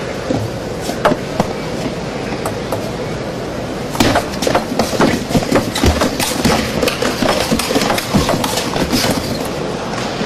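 Table tennis rally: the celluloid ball clicking sharply off paddles and table in quick, irregular succession from about four seconds in, over the steady background noise of the arena hall.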